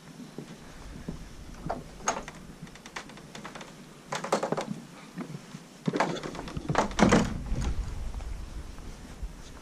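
A series of knocks and thumps, the loudest cluster a little past halfway, over a low rumble.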